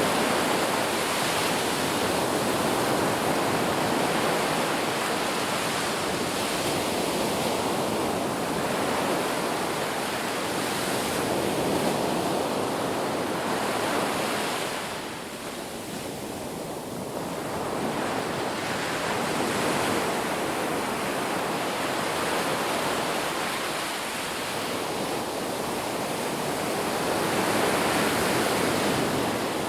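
Ocean surf breaking on a beach: a continuous rushing wash that swells and eases every few seconds, with a quieter lull about halfway through.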